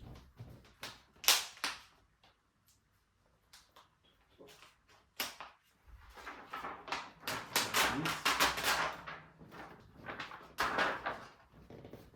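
Handling sounds while packaging is taken off a new mountain bike: sharp clicks and knocks, the loudest about a second in, then several seconds of rustling and scraping.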